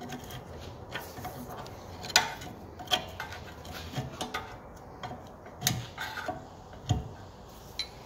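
A steel pry bar levering a stuck rear brake caliper off its disc: a scattering of sharp metal clicks and knocks at irregular intervals as the caliper works loose.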